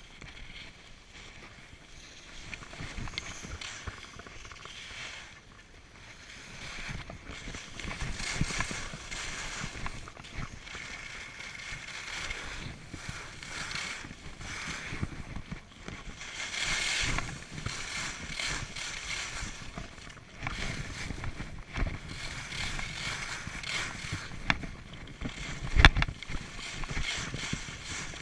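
Skis hissing and scraping over packed snow on a downhill run, swelling and fading with each turn. A single sharp knock near the end.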